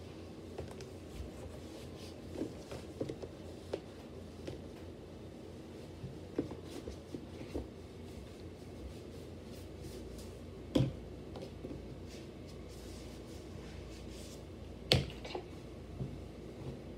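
A towel rubbing over a wet plastic conditioner bottle as it is dried by hand, with scattered light taps and clicks of the bottle being handled. Two sharper knocks stand out, one about two-thirds of the way through and one near the end.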